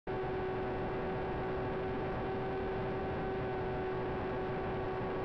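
Steady hum of the FT Explorer's electric motor and propeller running at constant throttle, over an even rush of wind noise, picked up by the camera on board the plane in flight.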